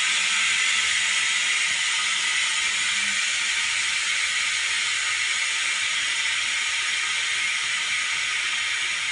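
OCA bubble-remover autoclave venting its compressed air at the end of a timed cycle: a steady hiss that slowly fades as the chamber pressure, set to about 0.4 MPa, falls.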